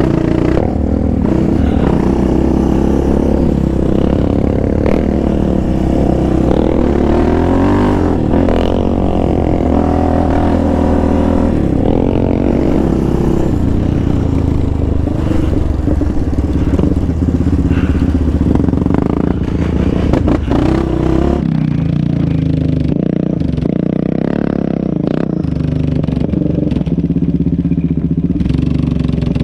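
Yamaha Raptor 700 sport quad's single-cylinder engine running on the trail, its pitch rising and falling with the throttle, with clatter from the machine over rough ground. About 21 s in the sound changes abruptly to a quad engine heard from beside the track as it rides toward the camera.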